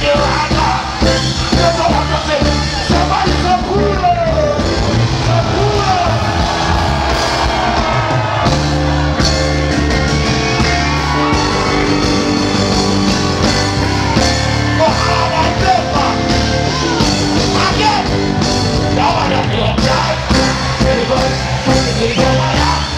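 Live reggae band of keyboards, electric guitar and drums playing continuously, with a male vocalist singing over it through the PA.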